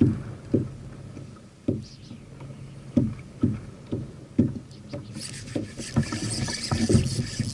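Small waves slapping against the plastic hull of a Hobie Outback kayak: irregular low knocks about every half second. A steady high hiss joins them about five seconds in.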